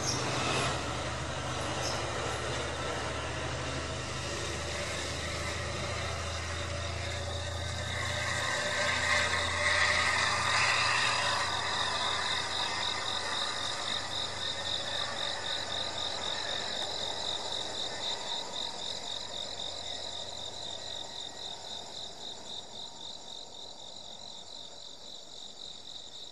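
The Shiki-shima luxury sleeper train running on its diesel generators as a diesel-electric train as it passes and pulls away: a steady low hum with wheel and rail noise that swells about nine to eleven seconds in, then fades. Once it has faded, insects chirping in a steady pulsing rhythm are heard clearly.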